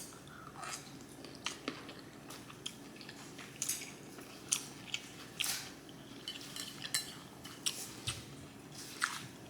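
Soft, close-miked eating sounds: chewing and mouth smacking over shrimp and broccoli, with irregular short clicks and taps about once a second.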